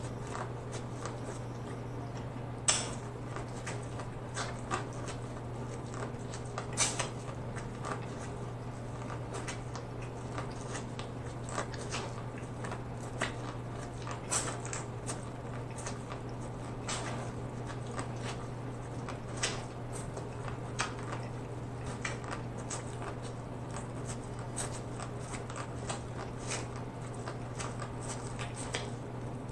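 Close-miked eating of corn on the cob: biting into the kernels and chewing, with sharp wet mouth clicks at irregular intervals, the loudest about 3 and 7 seconds in, over a steady low hum.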